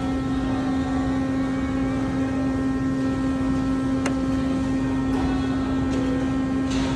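Steady hum with one constant tone over an even background noise, from a refrigerated bakery display case. A faint click about four seconds in.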